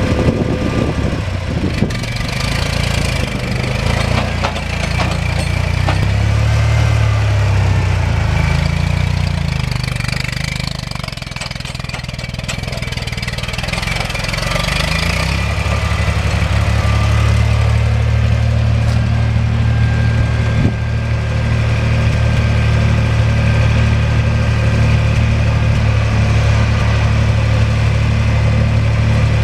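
Massey Ferguson 135 tractor engine running as the tractor is driven, its note shifting up and down in the first half and then holding steady.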